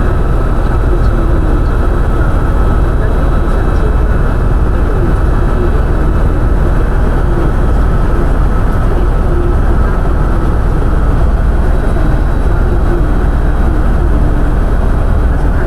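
Helicopter in flight: a loud, steady engine and rotor drone that holds unchanged throughout.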